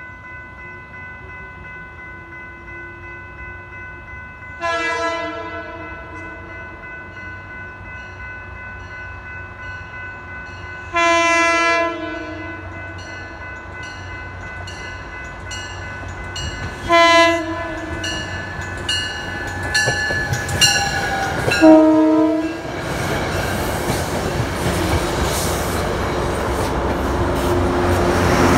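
Metro-North commuter train's horn blowing long, long, short, long as it approaches, the standard grade-crossing pattern. The train's running noise then builds to a loud rumble as it passes close by.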